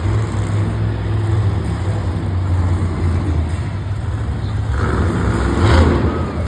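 A monster truck's engine runs loud and low during its run in the arena, with a louder surge about five seconds in.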